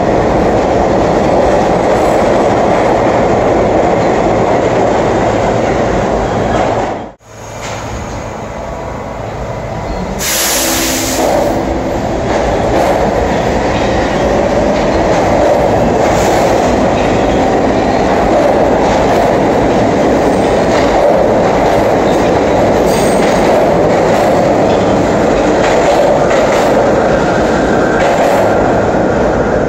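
New York City subway trains running through an underground station: a steady, loud rumble of wheels on rail with some clatter and squeal. About seven seconds in, the sound cuts out abruptly and then picks up again. Soon after, a short sharp hiss is heard before the rumble of a train continues.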